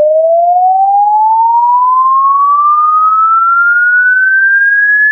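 A single pure electronic tone sliding slowly and steadily upward in pitch, an added sound effect laid over the clip.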